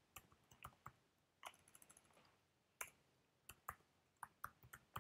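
Faint, irregular clicking of computer keyboard keys being typed.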